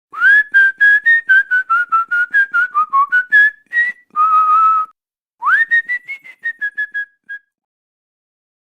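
A person whistling a quick tune in short, detached notes, about four a second. Midway comes a longer held note, then a swooping rising note and a run of notes that fade out.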